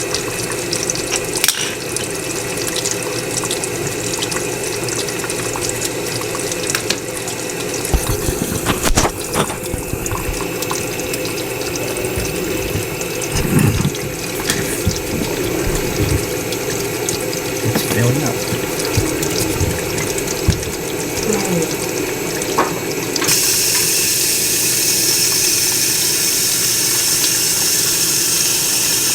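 LG dishwasher filling with water at the start of a heavy, high-temperature cycle: a steady hiss of water running in, with occasional clicks. About 23 seconds in, a louder, steadier rush starts up.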